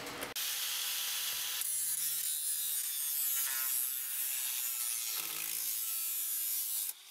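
Small electric fans running in a tube-shaped solder fume filter, drawing air through steel wool and activated carbon: a steady airy whir with a faint wavering hum. It starts abruptly just after the beginning and cuts off shortly before the end.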